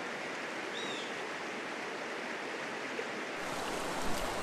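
Mountain stream water rushing over rocks in a steady hiss, with one short high chirp about a second in. About three and a half seconds in the rush turns fuller and a little louder, with more low rumble.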